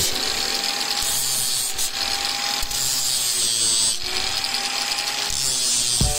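Bench-clamped angle grinder running, its abrasive disc grinding the metal hex end of a centre punch held against it: a steady rushing grind over the motor whine, which sags in pitch and recovers as the part is pressed on and eased off.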